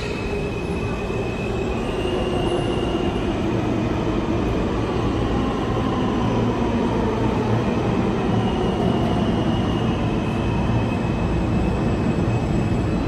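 New York City subway train running on the tracks through an underground station: a steady rumble with faint whines gliding slowly down in pitch.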